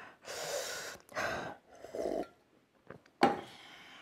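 A man breathing hard and sniffling from the burn of Carolina Reaper hot sauce, his nose running. There are three rough breaths in the first two seconds, then a sharper, louder one a little after three seconds in.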